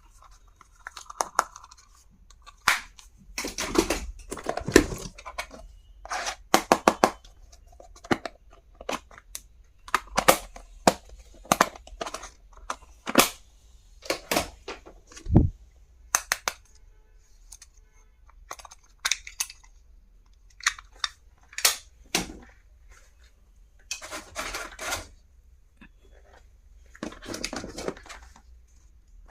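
Packaging and stationery items being handled: crinkling and tearing of packaging, with many irregular sharp clicks and knocks of small plastic items.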